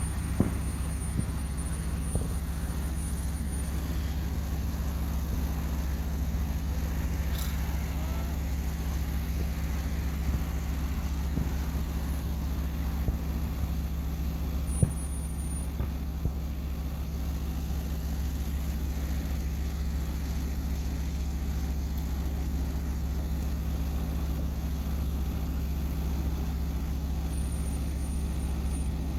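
Steady low hum of an idling vehicle engine, with a few faint short knocks on top.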